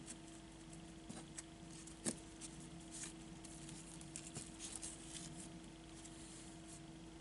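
Faint rustling and small taps of a paper tag and satin ribbon being handled, with one sharper tap about two seconds in, over a steady low hum.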